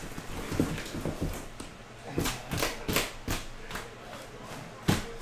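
Cardboard case and card boxes being handled: a series of light taps and knocks as boxes come out of the case and are set down, with the sharpest knock near the end.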